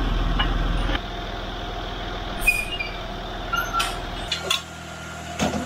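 Land Rover Discovery 3's TDV6 diesel engine idling steadily, with a few sharp metallic clinks and a brief hiss as the car is let down off its jack stands.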